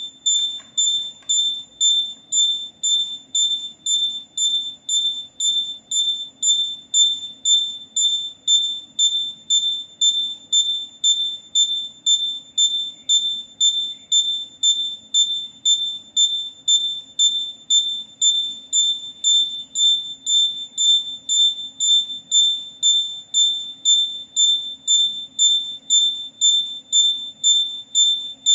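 High-pitched electronic beeping, about two even beeps a second, unchanging throughout, over a faint low hum.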